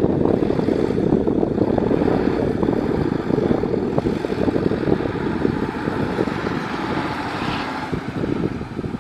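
Heavy construction machine's engine running steadily with a loud, rough low rumble that eases slightly near the end.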